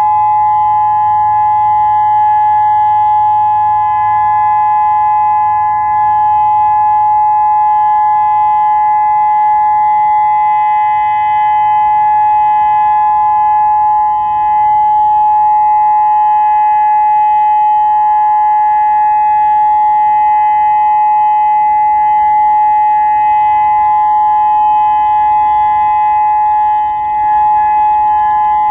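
Federal Signal Modulator 6024 electronic warning siren sounding its dual-tone steady alert signal: two close tones held at an even pitch and loudness, with no rise or fall.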